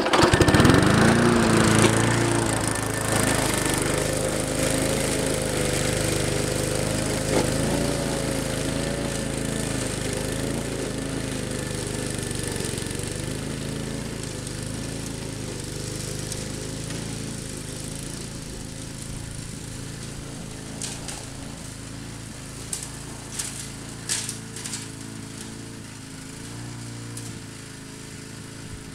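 Walk-behind lawn mower's small engine catching with a brief swoop in pitch, then running steadily while mowing through tall ragweed, growing fainter as it moves away. A few sharp clicks near the end.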